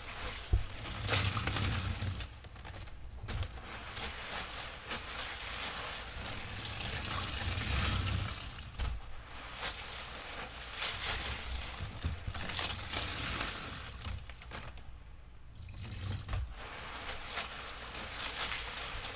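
A sudsy sponge being squeezed by hand, with soapy liquid pouring and trickling out of it. It comes in several long squeezes with short lulls between them.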